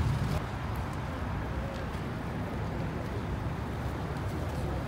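Classic muscle car's engine idling, a low steady exhaust rumble.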